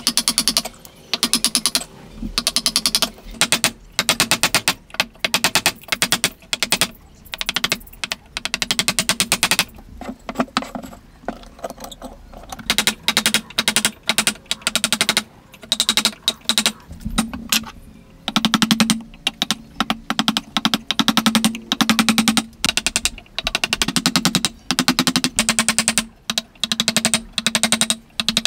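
A hammer tapping a chisel into a wooden beam in quick runs of light blows with short pauses between them, chopping out a joint.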